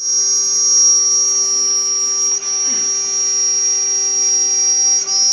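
An Omni CNC router's spindle whines at a high, steady pitch as its bit cuts through 18 mm MDF. The sound dips briefly about two and a half seconds in and again near the end.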